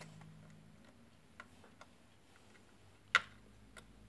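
Scattered small clicks and taps of hardware being handled and fitted by hand, with one sharper click about three seconds in.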